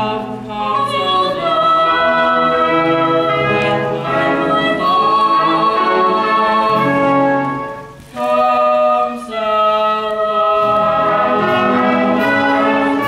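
Slow love-song ballad sung on stage with held, sustained notes, accompanied by a live pit orchestra. The music briefly drops away about eight seconds in before the singing resumes.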